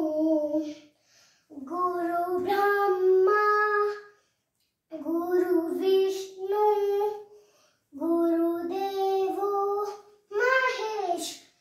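A young girl singing unaccompanied, in held melodic phrases of one to two and a half seconds, with short breaks between them.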